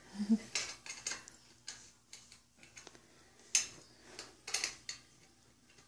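Scattered small clicks and ticks at an uneven pace: hands handling and fitting the plastic parts of an artificial Christmas tree stand.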